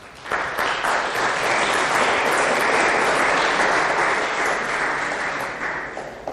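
Audience applauding. The clapping starts just after the beginning, holds steady, then fades out near the end.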